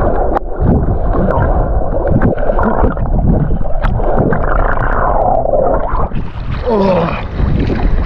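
Sea water splashing and sloshing close to the microphone as a swimmer strokes through it, with scattered sharp splashes and a few gurgling, wavering sounds a little after the middle.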